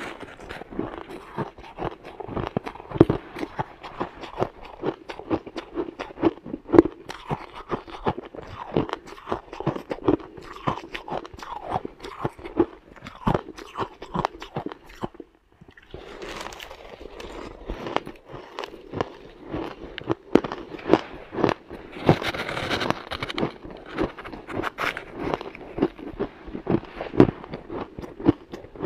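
Close-up chewing of a mouthful of shaved ice: dense, rapid crunching, with a short pause about halfway through.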